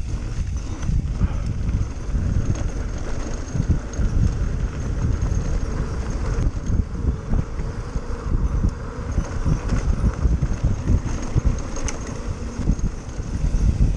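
Mountain bike rolling over a rough dirt trail: a steady low rumble with many irregular knocks and rattles.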